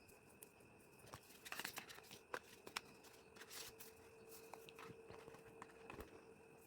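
Faint handling noises of packaging: a few seconds of crinkling and rustling with sharp clicks, then scattered light ticks.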